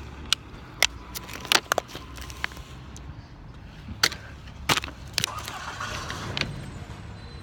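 Sharp, irregular clicks and crackles of a thin plastic water bottle being handled and squeezed, with a stretch of rustling handling noise near the end.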